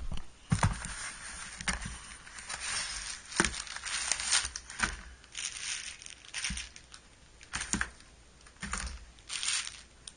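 Unpacking sounds: brown kraft packing paper crinkling and rustling and a cardboard mailing box being handled, in irregular bursts with a few sharp clicks and knocks.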